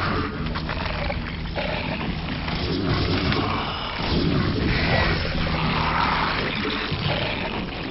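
Real-time strategy video game sound effects: a battle between Zerg and Protoss units, with a continuous mix of attack, impact and unit noises.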